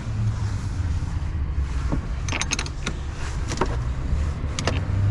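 Short metallic clicks and clinks, several in a row from about two seconds in, of hand tools working at a truck battery's terminals as it is disconnected before welding, over a steady low hum.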